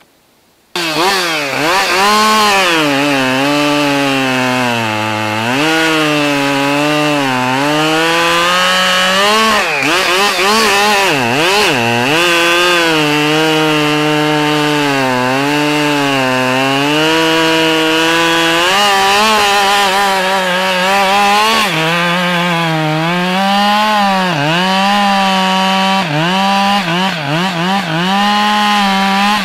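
Husqvarna 572XP, a 70 cc two-stroke chainsaw, cutting into a large spruce log at high revs. The sound starts abruptly about a second in, and the engine pitch repeatedly sags as the chain bites under load and then climbs back.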